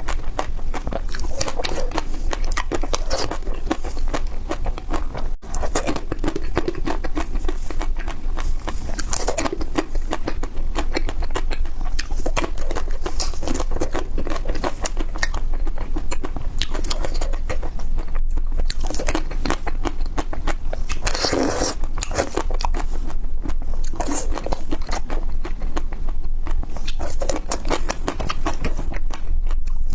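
Close-miked crunchy biting and chewing of crispy ice cream: a dense, crackly crunching with louder bites every few seconds.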